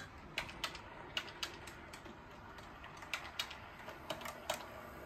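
An H0 model train running on the layout, its wheels giving light, irregular clicks over the rail joints, several of them in quick pairs.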